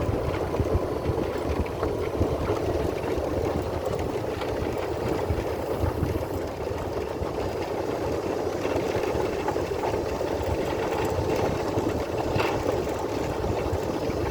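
Golf cart driving along a gravel track, a steady rumble of its drive and tyres on the loose surface.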